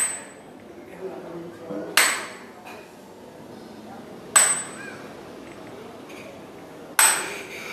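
Chrome dumbbells clanking together during overhead presses: three sharp metallic clinks, one every two to three seconds, each with a brief high ring.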